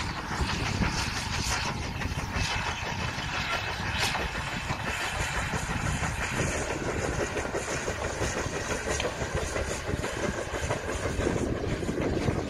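A railway locomotive running, a steady mechanical sound that grows a little fuller about halfway through.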